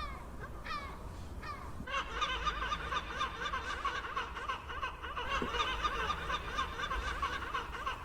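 Seagulls calling: a few separate calls at first, then, about two seconds in, many gulls calling at once in a dense, overlapping chorus.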